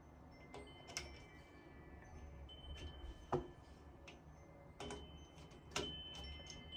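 Light metallic clicks and clinks of a screwdriver and metal shower-valve parts, about five in all with the loudest near the middle, several leaving a short thin ring.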